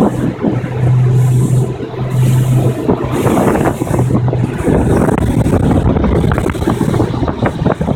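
Tour boat's engine running under way, with a steady low hum that drops out about halfway, under loud wind rushing over the microphone.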